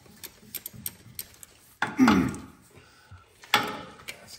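Hand tools clinking and ticking on the rear transmission mount bolts under a Toyota Tundra. Two louder metallic clunks come about two seconds in and again near the end.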